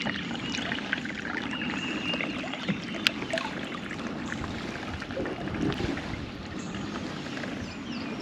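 Water trickling and splashing around a kayak as it moves on the river, with a few small knocks and ticks.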